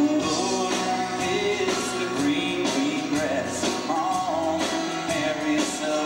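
Live band playing, with a fiddle carrying a gliding melody over drums and guitar at a steady beat.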